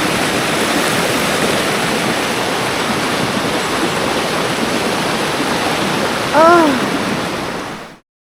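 Rushing water of a rainforest mountain stream, a steady even rush that cuts off abruptly near the end.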